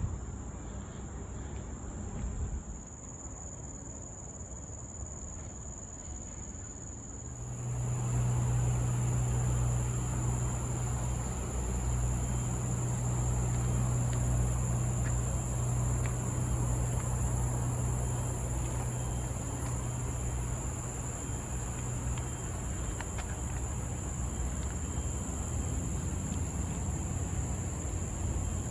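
A steady, high-pitched chorus of insects, crickets or cicadas, from tropical rainforest. A second, higher insect tone joins about seven seconds in, together with a louder steady low rumble.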